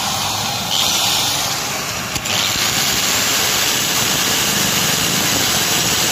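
Handheld electric angle grinder running with a small grinding wheel pressed into a steel pin bore, a loud steady grinding hiss that gets a little louder from about two seconds in. It is grinding the worn, loose bore of a boom-stick pin eye to size so a bushing will fit.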